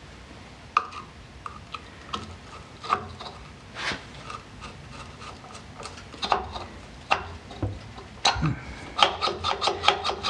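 Small metal clicks and scrapes as a screwdriver and a tiny screw are worked into the breaker plate of a distributor. They come at irregular intervals, with a quick run of ticks near the end.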